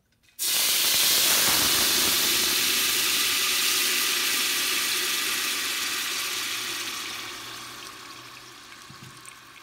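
Blended tomato, garlic and onion purée poured through a mesh strainer into a pot of hot oil, sizzling loudly. The sizzle starts suddenly about half a second in and slowly dies down over several seconds.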